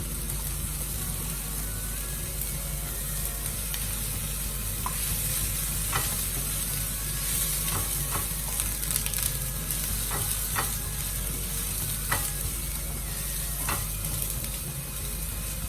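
Onion and garlic sizzling steadily in hot oil in a pan while being stirred, with a few sharp clicks of the utensil against the pan.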